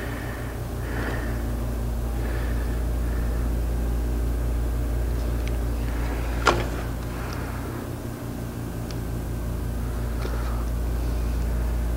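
Steady hum of a workshop machine running in the background, with a single sharp click about six and a half seconds in.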